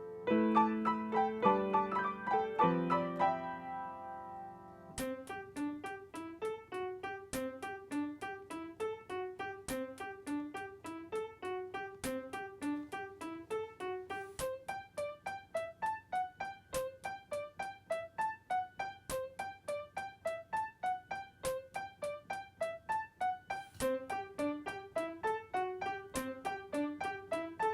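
Background piano music. A few held chords play, then from about five seconds in a quick, evenly repeating run of notes with a regular ticking beat.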